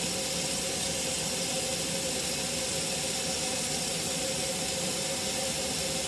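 Kitchen tap running a steady stream of water into a stainless steel sink: an even, unbroken hiss with a faint steady tone underneath.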